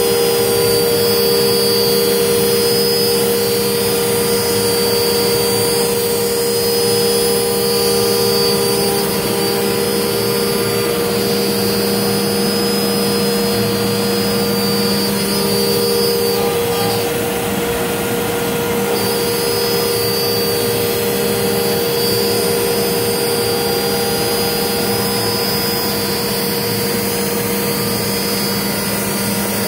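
Limtech Centaurus CNC router spindle running and milling ABS plastic sheet: a steady whine in several pitches over a loud rushing noise. The highest part of the whine breaks off for about two seconds around the middle, then returns.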